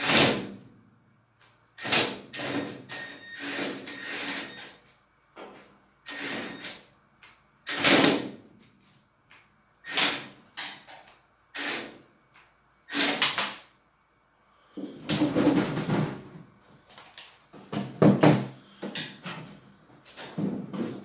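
Cordless drill-driver backing self-tapping screws out of an oven's thin sheet-metal casing, in a dozen or so short bursts a second or two apart.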